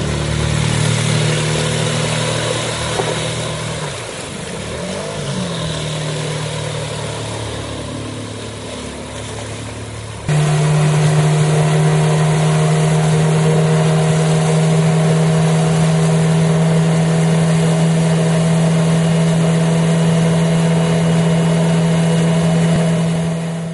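Small Mercury outboard motors running at speed, with a brief pitch sweep about five seconds in. About ten seconds in, the sound cuts abruptly to one outboard running louder and very steady, close by.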